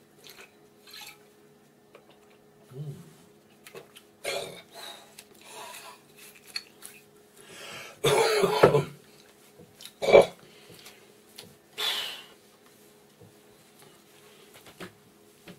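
A man coughing and clearing his throat several times after a swig of strong (45%) schnapps. The loudest cough comes about eight seconds in, followed by two shorter ones.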